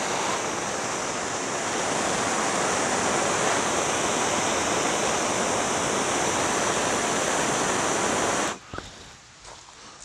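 Handheld gas torch on a yellow fuel cylinder burning with a steady hiss while pruning shears are flame-sterilized between cuts; the flame is shut off abruptly about eight and a half seconds in.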